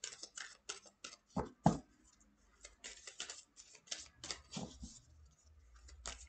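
Oracle card deck being shuffled by hand: a run of irregular crisp clicks and slaps of card on card, with two louder soft knocks about a second and a half in.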